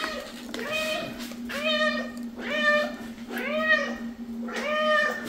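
A silver spotted tabby cat meowing over and over, five rising-and-falling meows about a second apart, begging for the bag of treats held above it.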